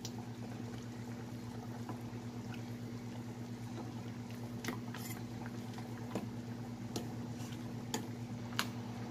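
A pot of pork soup bubbling as a ladle stirs through the broth and vegetables, with a steady low hum underneath. In the second half the ladle knocks lightly against the stainless pot about six times.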